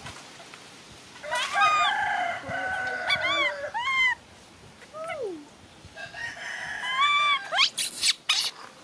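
A rooster crowing twice, mixed with short rising-and-falling calls from a baby macaque, and a brief rustling burst near the end.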